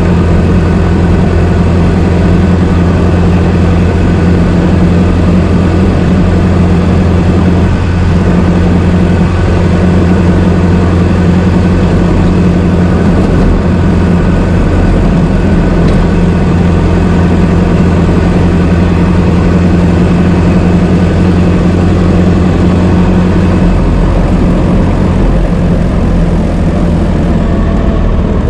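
Old car's engine running steadily at a low idle, a loud, even, low drone.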